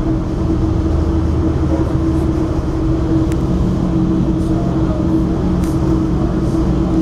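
Steady running noise of a road vehicle in motion: a low rumble with a steady hum.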